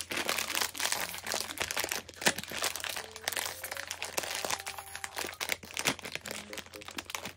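Plastic snack packaging being crinkled and torn open: a dense, irregular run of crackles and rustles.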